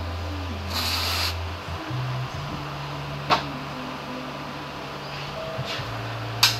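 A short hiss from an aerosol spray can, about half a second long, about a second in. Two sharp clicks follow, one near the middle and a louder one near the end, over steady background music.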